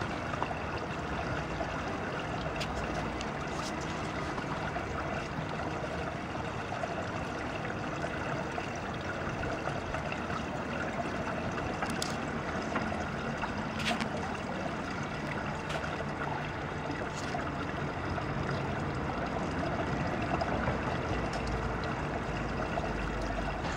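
Steady trickle of running pool water, with a few sharp clicks, the loudest two a little past halfway through.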